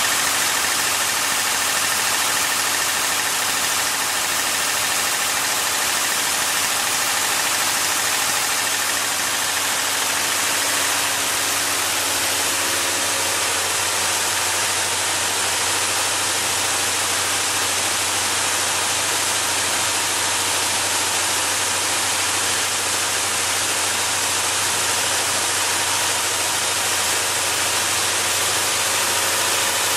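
IPACK YR 700 can body welding machine running steadily: a continuous mechanical hiss with a faint hum that drops out about halfway through.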